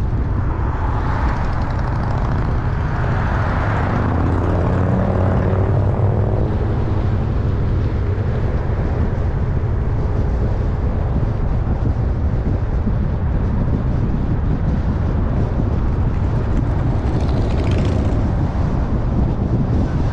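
Road noise of a car being driven through city streets: a steady low rumble of tyres and engine, with an engine note that rises and falls in pitch between about four and seven seconds in.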